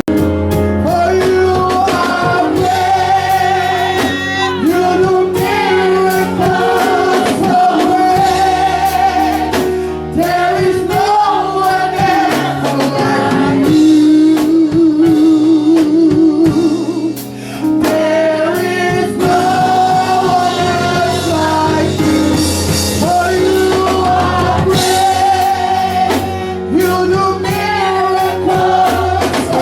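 Gospel music: sung vocals with vibrato over band accompaniment with drums.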